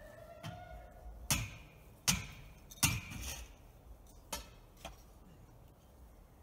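A hammer beating a piece of metal down into the ground: three sharp metallic strikes less than a second apart, the last ringing briefly, then two fainter strikes.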